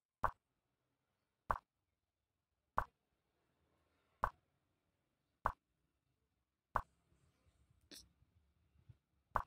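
Chess program's piece-move sound: a short, sharp click as each move is placed on the board, six at an even pace of about one every 1.3 seconds, then a seventh after a longer pause near the end.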